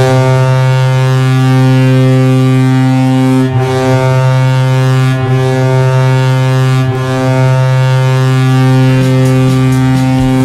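Colorado Avalanche goal horn sounding one long, steady low blast, the signal of a home-team goal.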